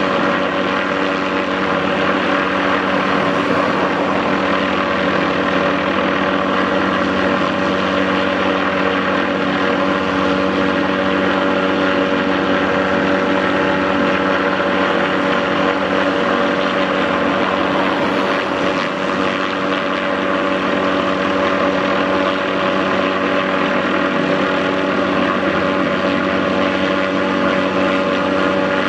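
MD530F helicopter running steadily in hover or slow flight: its turbine engine and rotors make a constant loud whirring noise with several steady tones in it.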